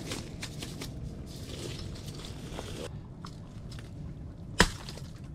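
Small wet rustling and clicking as a slimy whitefish is handled, with one sharp knock about four and a half seconds in.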